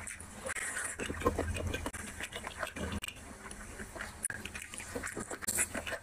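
Close-miked chewing and wet mouth sounds of someone eating rice and curry by hand, with many small smacking clicks.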